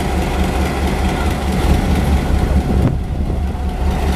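Taiwan Railway diesel-electric locomotive's engine running steadily with a deep, even hum.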